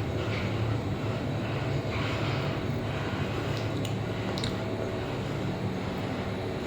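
Steady low hum and rumble inside a moving passenger lift car as it travels up, with a couple of faint ticks about halfway through.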